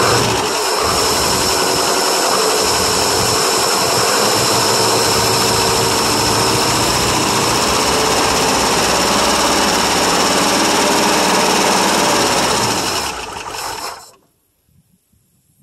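International 392 V8 in a 1971 International 1210 pickup running after a cold start from 28 years of sitting, fed on fuel poured into the carburetor. It runs steadily, then fades and dies about 13 to 14 seconds in.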